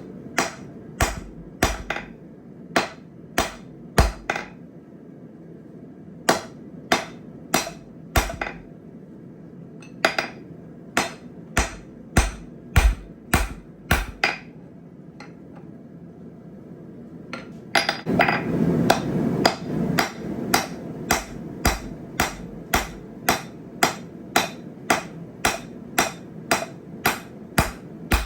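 Blacksmith's hammer striking hot steel on an anvil, tapering down an old jackhammer chisel. The blows come about one and a half a second in runs, with short pauses between runs. A rushing noise swells under the strikes about two-thirds of the way through.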